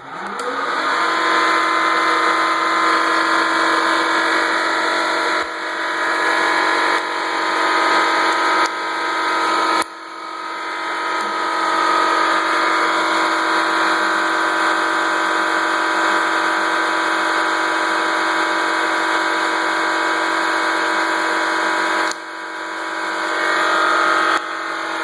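Bridgeport milling machine's spindle motor and drive starting up, spinning up within the first second, then running steadily with a high whine.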